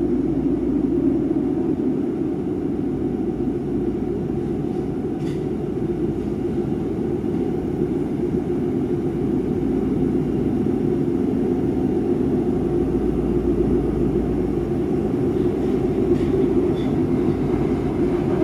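Nagoya Municipal Subway 5050-series train running through the single-track shield tunnel, heard from inside the car: a loud, steady rumble of the train in the tight tunnel.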